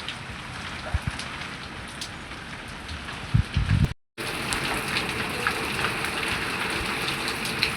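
Heavy rain pouring down, with hail pattering among it and a few low knocks about three seconds in. The sound cuts out for a moment about four seconds in, then the downpour goes on steadily.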